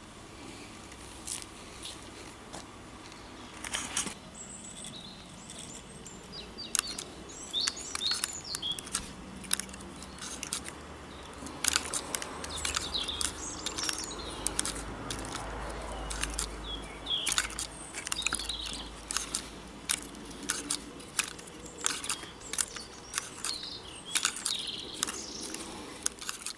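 A wooden whirligig's propeller-driven linkage clicking and knocking as it is turned by hand, the clicks coming at about one or two a second from about six seconds in. Birds chirp in the background.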